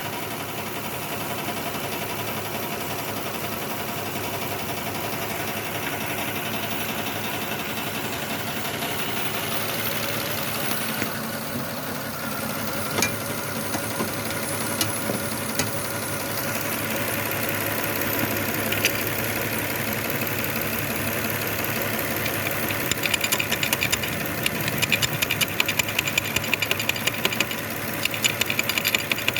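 Lexus ES330's 3.3-litre V6 idling with a misfire from a dead number 5 cylinder whose injector is stuck closed. The injector is tapped on to try to free it: a few single knocks around the middle, then fast repeated tapping over the last few seconds.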